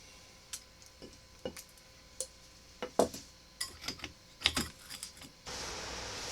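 Irregular sharp clicks and knocks of hard objects being handled, about a dozen of them, the loudest about three seconds in and again about four and a half seconds in.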